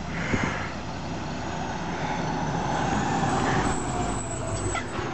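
Fire engine's diesel engine running as the truck drives up the street and passes close by, growing louder as it nears.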